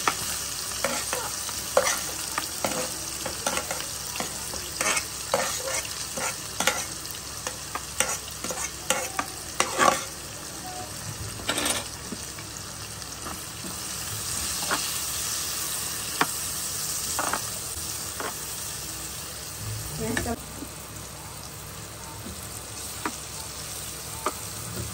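Chopped onion frying in hot oil in a non-stick kadai: a steady sizzle, with frequent sharp clicks and taps, most in the first half, as the onion is tipped in and stirred with a spatula.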